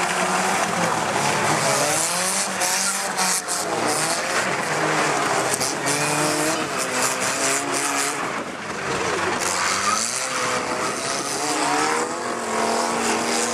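Micro banger racing cars' small engines revving hard, their pitch rising and falling again and again, with tyre squeal and sharp knocks of cars hitting each other, most of them in the first half.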